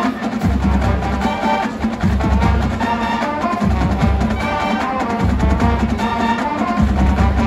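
Marching band playing: brass chords over a drumline with snare rolls and bass drums, and a deep low note that comes in about every second and a half.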